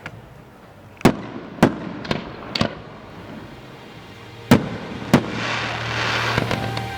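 Fireworks going off: a run of sharp aerial bangs, several in quick succession, with a hissing crackle between the later bangs.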